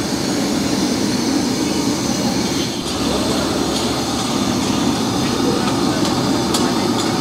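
Steady noise of high gas flames burning under metal karahi pans of chicken cooking in butter, with a few light clinks as a metal ladle stirs a pan.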